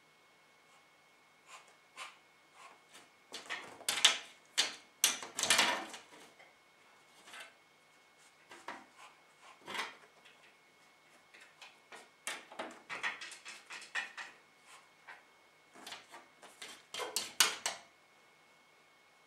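Sphynx cat pawing at a glass tank: irregular taps and claw scratches on the glass, coming in bursts, loudest about four seconds in and again near the end.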